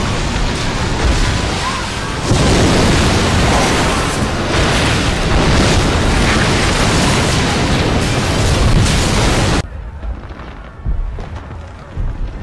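Film sound of a tsunami wave surging ashore and smashing through buildings: a heavy, loud rush of water and crashing debris that grows louder about two seconds in. Near the end it cuts off suddenly to quieter street-market bustle with voices.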